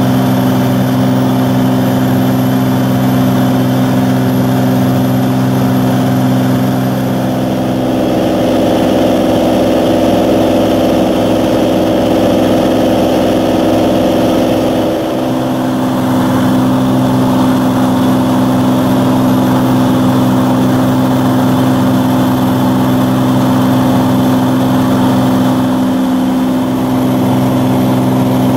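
Cirrus SR22's six-cylinder piston engine and propeller droning steadily in cruise, heard inside the cabin. The tone shifts for several seconds in the middle, with a brief dip, then settles back.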